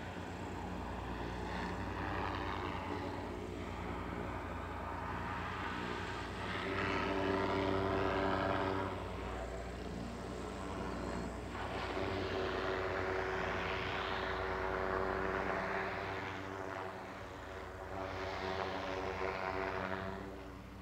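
Propeller engines of the Goodyear Zeppelin NT airship Wingfoot One running: a steady engine drone under propeller rush that swells and eases several times, loudest about a third of the way in.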